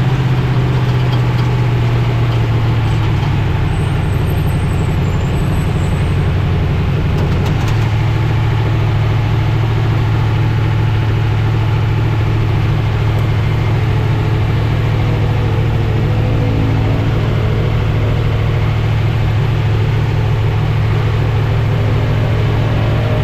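Trophy truck's engine running steadily under way, heard from on board, over a constant wash of noise. The engine note steps down slightly about three seconds in and again about seven seconds in.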